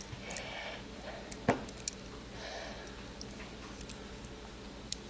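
Quiet room with a few small sharp clicks, the loudest about a second and a half in, and two soft hissy, breath-like sounds.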